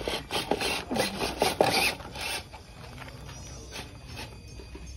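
Gritty scraping and crunching, a quick run of rough strokes in the first two seconds or so, then dying down to faint background sound.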